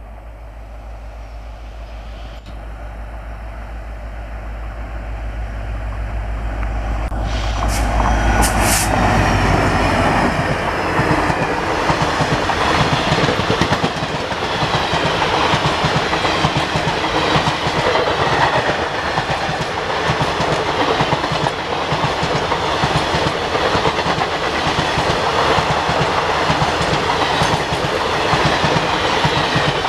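WDP 4D diesel locomotive approaching and passing with a passenger train: the engine's low drone grows steadily louder for about eight seconds, then the coaches clatter over the rails at speed.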